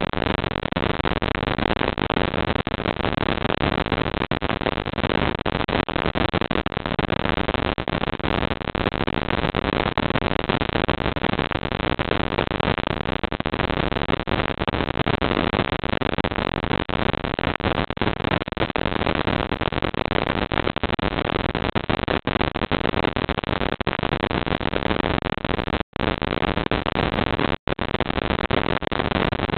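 Steady rushing noise picked up by a CCTV camera's microphone, unchanging throughout, cut off twice for a split second near the end by gaps in the recording.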